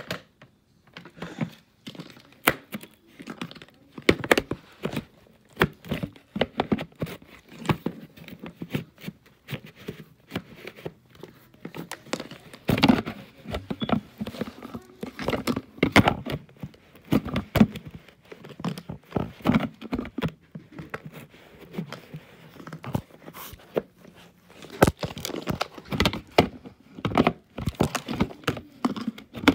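Fine, fluffy dirt crackling and crunching as it is sucked up through an open vacuum hose, in dense irregular clusters of sharp crackles.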